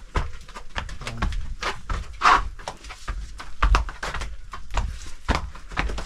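Footsteps of several people walking in flip-flops and sandals over a cave floor: irregular slaps, scuffs and knocks over a low rumble, with one louder knock about two seconds in.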